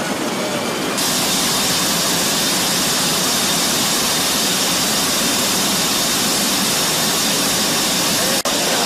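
Steady rushing of wind and jet engine noise at the open paratroop door of a C-17 Globemaster III in flight. It steps up louder about a second in and drops out for an instant near the end.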